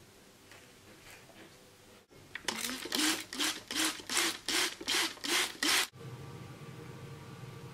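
Hand trigger spray bottle misting water over a freshly sown pot of compost: about nine quick squirts in a row, each a short hiss.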